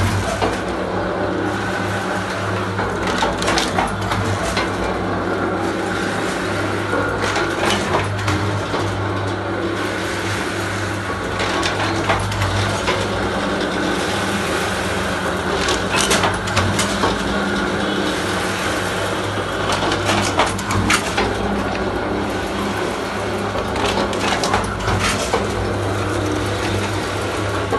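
Paper plate making machine running: a steady motor hum with repeated sharp knocks a second or a few seconds apart as its two heated dies press silver-foil paper plates.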